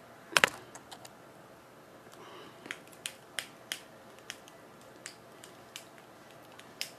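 A pair of metal scissors being handled: a sharper click about half a second in, then a scattered string of light, irregular clicks and taps.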